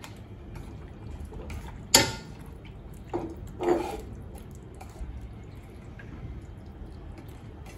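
Hands squishing and kneading sliced beef in a plate of liquid marinade, with wet squelching and dripping, a sharp click about two seconds in and two louder squelches a little after.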